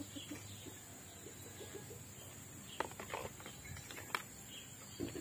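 Faint outdoor chirping in the background, with a few soft rustles and clicks of a cardboard phone box and its accessories being handled, the loudest about three seconds in.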